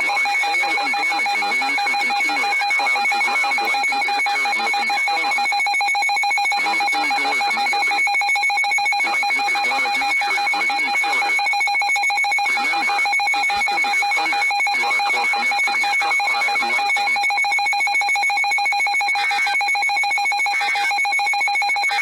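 A steady, unbroken electronic alert tone held at the same pitch: the Emergency Alert System attention signal sent ahead of a weather warning.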